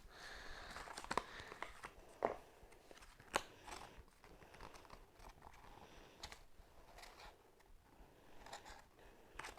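Toy packaging being worked open by hand: quiet rustling and crinkling, with three sharp snaps spaced about a second apart in the first few seconds. The packaging is tight.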